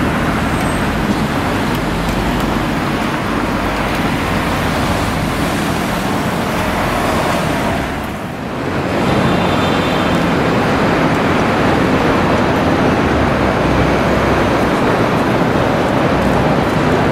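Steady city road traffic: cars running along a street shared with a street-running Hankai Mo501-type tram. The sound dips briefly about eight seconds in, then carries on as before.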